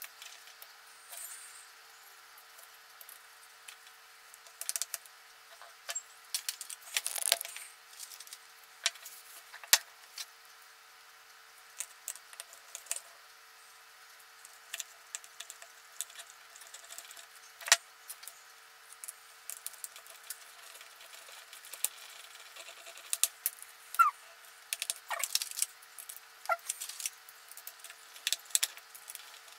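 Scattered light clicks, taps and rattles of hand work on a bare LCD panel: handling its backlight cable and tape and working a small screwdriver at the metal frame. The loudest is a sharp click just past halfway, with a few short squeaks near the end.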